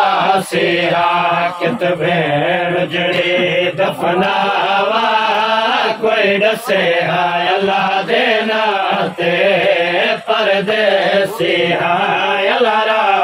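Men's voices chanting a noha, a Shia mourning lament, in a drawn-out, wavering melodic line, with a few sharp slaps scattered through it.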